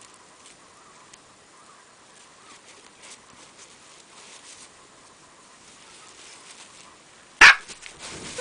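A pet's single sharp sneeze about seven and a half seconds in, much louder than the faint clicks and ticks of play that come before it.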